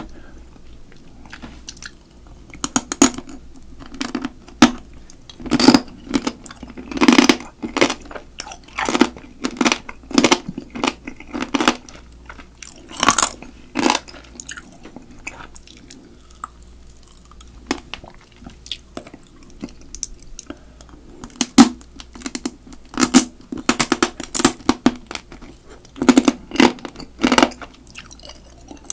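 Close-miked chewing of spicy marinated raw crab (yangnyeom-gejang), the shell cracking between the teeth in sharp, irregular crunches. There is a quieter stretch of softer chewing in the middle.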